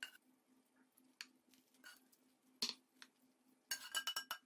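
Wooden spoon scraping ground-meat filling: a few short, faint scrapes, then near the end a quick run of scrapes with a faint ring as the filling is scraped out of a frying pan into a glass baking dish.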